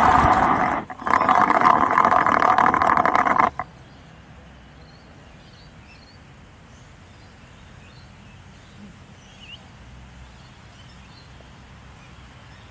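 Remote-controlled car driving, heard from a camera mounted on the car itself: a loud running noise with a brief dip about a second in, cutting off abruptly after about three and a half seconds as the car stops. Then a quiet outdoor background with a few faint bird chirps.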